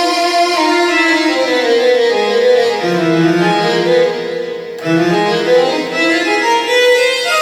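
Korg TR workstation keyboard playing a melodic phrase on one of its preset voices. There is a brief break a little past the middle, then the melody picks up again.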